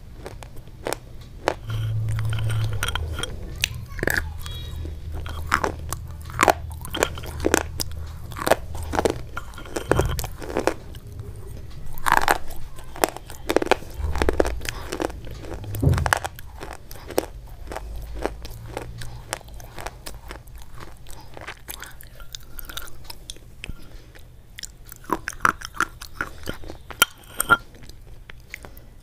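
Crisp, close-miked crunching of a brittle white block being bitten and chewed: a dense run of sharp cracks with softer grinding between bites.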